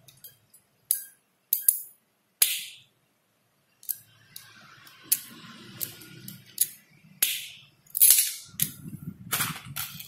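A hand-held RJ45 crimping tool snapping shut again and again as its blade cuts a Cat 6 UTP cable: a dozen or so sharp snaps, irregularly spaced, the loudest about eight seconds in. A low rustle of handling runs under the second half.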